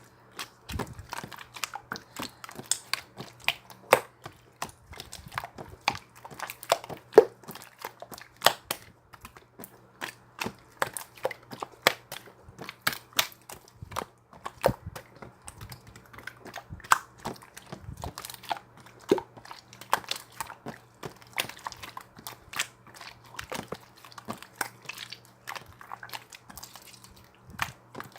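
Slime being squeezed and poked by hand, making a dense, irregular run of sharp pops and clicks, several a second, over a faint steady low hum.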